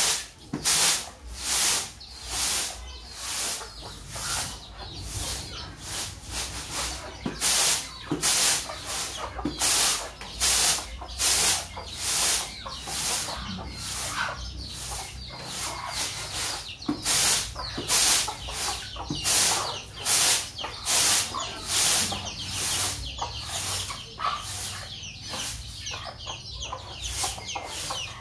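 Hens and chicks feeding on rice scattered on concrete, with clucking. Over it runs a loud train of short hissing pulses, about two a second, that fade near the end.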